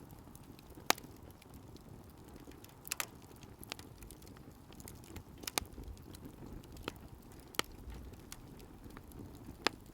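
Wood bonfire crackling: about seven sharp, irregular pops over a low steady rumble.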